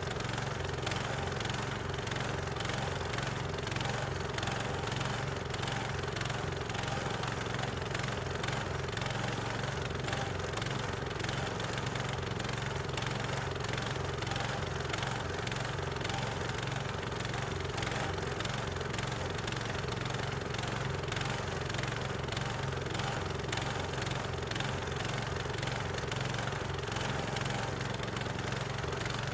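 Gasoline engine of a portable bandsaw sawmill running steadily, with no change in speed or load.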